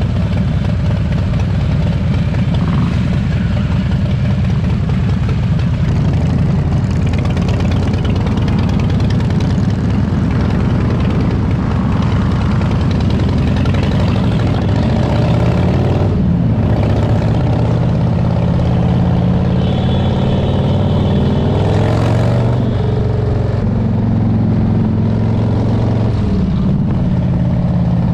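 Harley-Davidson V-twin motorcycle engines running, with the pitch shifting up and down as the throttle is worked, about halfway through and again toward the end.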